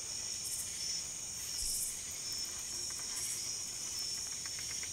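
Night insect chorus: a steady high-pitched trilling, with louder pulsed bursts of calls recurring about every second and a half.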